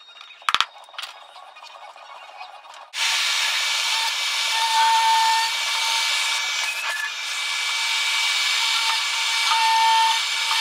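A short ringing click in the first second, then a Makita trim router starts about three seconds in and runs steadily at high speed, cutting maple in a routing jig with a hissing whine.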